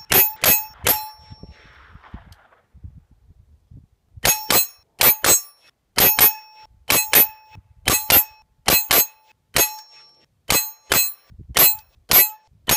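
Bullets striking a half-inch AR500 steel silhouette target, each hit a sharp clang that rings on in a bell-like tone. A few quick hits come at the very start, then about three seconds of quiet, then a steady string of hits at about two a second, some in quick pairs.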